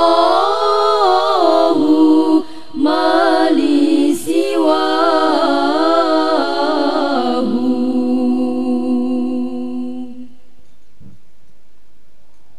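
Girls' voices singing a sholawat a cappella into microphones, an ornamented melody whose pitch bends up and down, broken by short breaths. A long final note fades out about three-quarters of the way through, leaving a pause.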